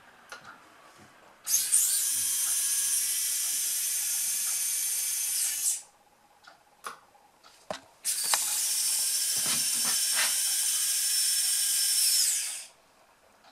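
Electric retractable landing gear of a Tarot 650 Sport running with a steady high whine for about four seconds as the carbon leg swings down. It runs again for about four seconds after a short pause with a few clicks.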